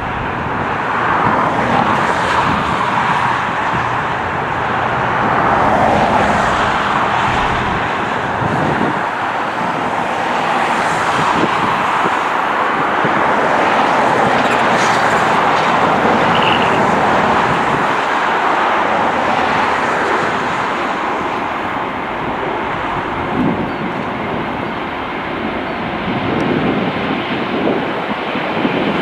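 Heavy jet airliner's engines at takeoff thrust: a loud, steady rush of jet noise that swells and eases slowly.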